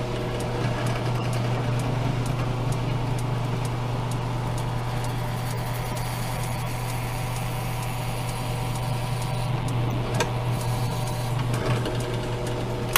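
Benchtop drill press running steadily, its motor giving a constant low hum while the bit bores into a block of red HDPE plastic. It shuts off right at the end.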